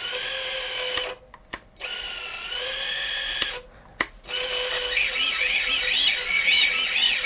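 Brushless motors of an FPV quadcopter spinning its propellers at idle: a steady, drill-like whine that stops briefly twice, about a second in and again around three and a half seconds, and turns wavering near the end. The owner judges the motor bearings not ideal by their sound.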